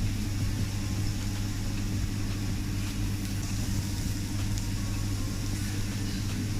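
Steady low mechanical hum with a constant hiss above it, unchanging throughout: a kitchen extraction fan running over a teppanyaki grill.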